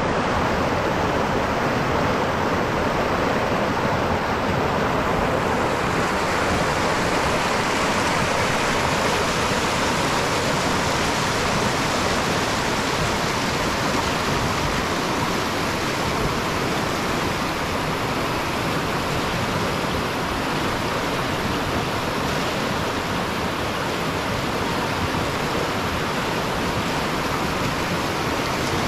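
River rapids: clear water running fast over and around boulders in shallow white water, a steady, even rush of water close by.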